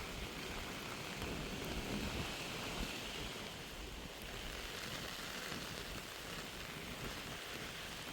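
Steady hiss of wind-driven rain or snow in a storm, with uneven low rumbles of wind buffeting the microphone.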